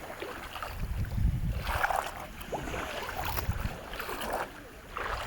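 Shallow seawater sloshing and splashing in a few separate surges, as from someone wading, over a low rumble of wind on the microphone.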